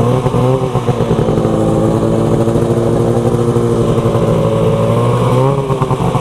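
Snowmobile engine running at a steady, fairly low speed, its pitch dipping briefly about five and a half seconds in and then recovering.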